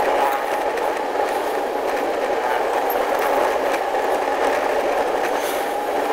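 Steady engine and road noise heard from a moving vehicle in traffic, an even rumble with no change in pitch.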